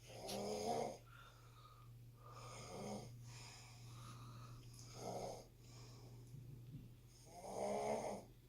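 Snoring: slow, rasping breaths in and out, with three stronger snores (near the start, about five seconds in and near the end) and softer breaths between them.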